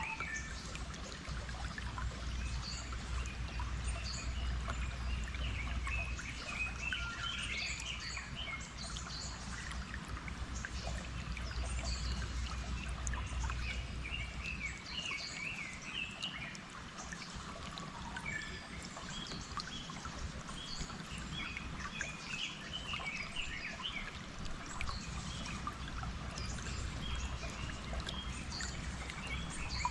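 Many small birds chirping and calling over the steady sound of running stream water, with a low rumble that eases about halfway through.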